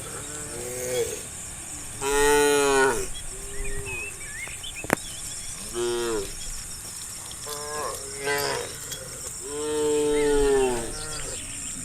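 Cows mooing repeatedly: about seven long calls, one after another, each arching in pitch, with the loudest about two seconds in and again near ten seconds in. A single sharp click sounds around the middle.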